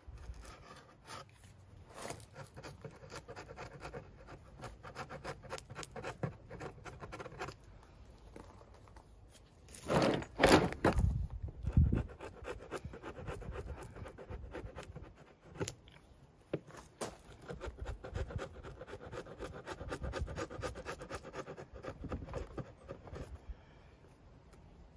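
Steel wood chisel scraping along the face of a timber door in many short, quick strokes, with a louder burst of handling noise about ten seconds in.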